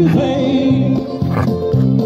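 Guitar music playing with held chords, and a dog close by giving a brief whine near the start and a short yip partway through.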